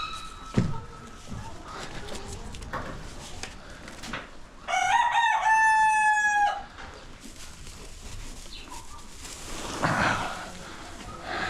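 Rooster crowing once, a single loud cock-a-doodle-doo lasting about two seconds near the middle.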